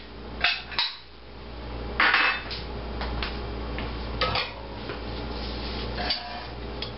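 Kitchen dishes and utensils knocking and clinking on a wooden counter: several separate knocks, the loudest about two seconds in, over a steady low hum.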